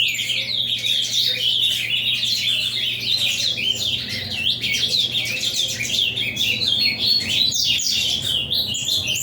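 Ultramarine grosbeak (azulão) singing a long, rapid run of quick chirping notes without a break.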